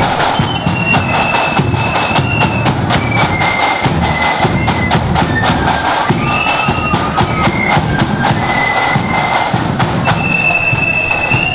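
Marching flute band playing a tune: high flutes carry the melody over rapid snare-drum strokes and a steady bass-drum beat.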